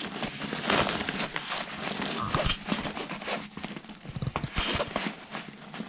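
Rustling and scraping of a backpack's gridded fabric as a stiff flat bar is pushed into its frame-stay pocket, with a few light knocks about four seconds in.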